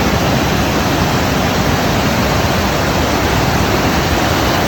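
Waterfall water rushing, a loud, steady, even noise with no breaks.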